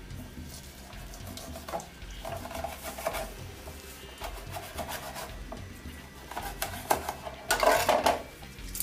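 Kitchen knife cutting limes on a plastic cutting board: scattered taps and scrapes of the blade against the board, with a louder stretch of scraping and handling near the end.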